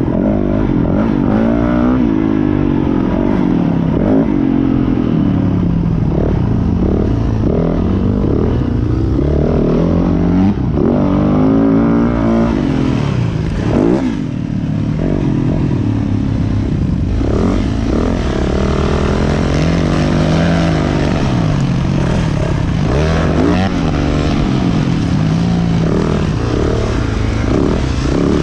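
Yamaha YZ450F four-stroke single-cylinder motocross engine heard close up from on the bike, revving hard with its pitch repeatedly rising and falling as the throttle opens and closes and the gears change around the track.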